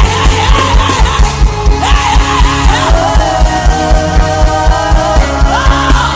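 Gospel worship music: a voice singing a wavering, melismatic chant line over held chords and a steady, quick drum beat.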